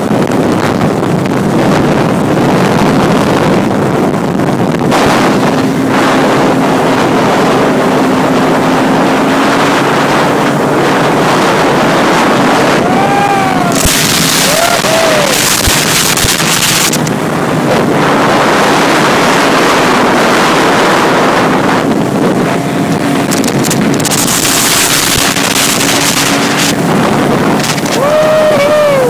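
Sea-Doo RXP personal watercraft running at speed, its engine and jet drive loud and steady, with the pitch swelling up and back down a couple of times. Water rushes and sprays around the hull, with wind buffeting the microphone.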